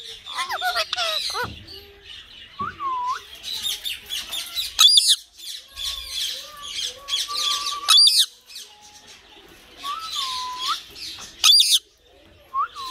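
Ringneck parakeet calling at night: runs of chattering and short gliding calls, broken by loud, sharp squawks about five, eight and eleven seconds in.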